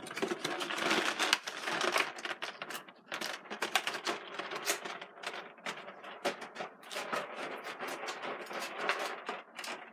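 Small plastic Ranger Key toys and their plastic packaging tray being handled: a quick, irregular run of light plastic clicks and clatters, with rustling in the first few seconds.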